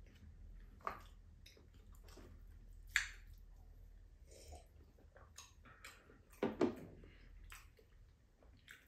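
Quiet chewing and small mouth sounds of people eating soft cooked sweet potatoes, with a few sharp clicks and soft knocks scattered through, the loudest about three seconds in and again about two-thirds of the way through.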